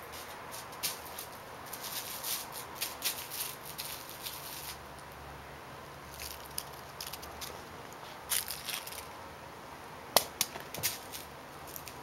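Crinkle ball toy crackling in short, uneven bursts as a kitten bites, carries and bats it, with the sharpest, loudest crunches a little before the end.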